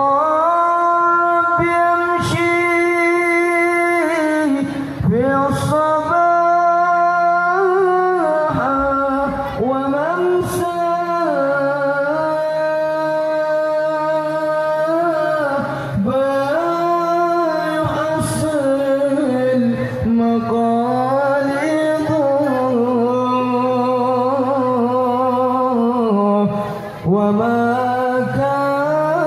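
A voice singing an Arabic devotional song (sholawat) in long, drawn-out phrases, each held note wavering and sliding between pitches, with a brief pause near the end.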